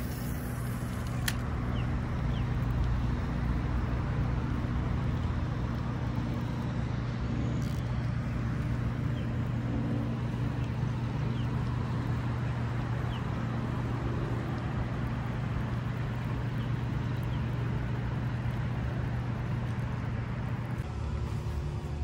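Lawn mower engine running steadily, a low even drone, with a single sharp click about a second in.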